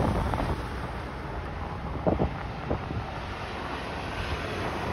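Wind buffeting the microphone over a steady low rumble of street traffic.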